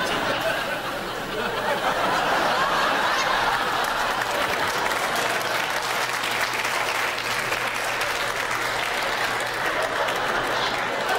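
Studio audience laughing and applauding without a break.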